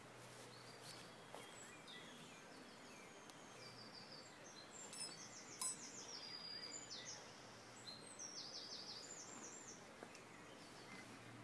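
Faint birdsong: repeated phrases of quick, high notes. Two sharp clicks come about halfway through.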